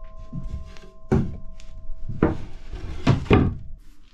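Wooden knocks and thunks of a plywood sheet being handled and set down on a wooden workbench: a few separate knocks, the loudest a quick pair near the end.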